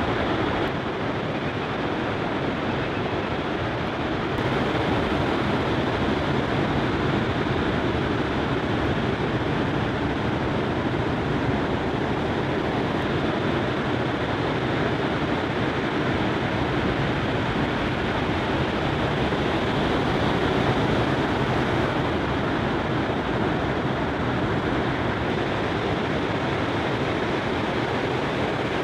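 Breaking ocean surf: a steady, unbroken rushing noise with no separate events.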